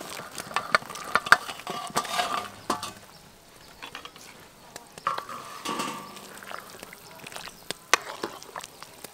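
Scattered clinks and knocks of metal on metal as vegetables and mushrooms are tipped off a metal tray into a large aluminium pot of steaming soup and stirred with a metal ladle.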